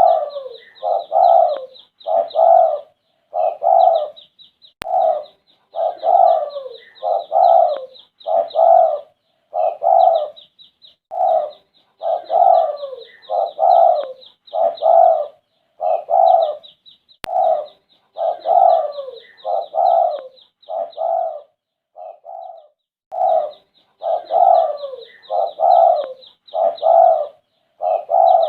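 Derkuku (spotted dove) cooing over and over in repeated multi-note phrases, pausing briefly about three quarters of the way through. Rapid high chirping from smaller birds runs behind it.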